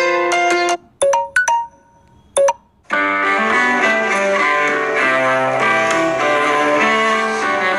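Samsung Galaxy Note 5 ringtones played in turn: a chiming melody stops under a second in, a few short separate notes follow, then a plucked-string ringtone melody begins about 3 seconds in.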